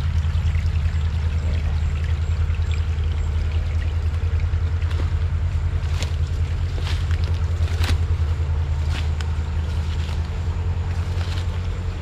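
A small jungle stream trickling over sheet rock, under a steady low rumble that is the loudest sound. A few sharp clicks come in the middle.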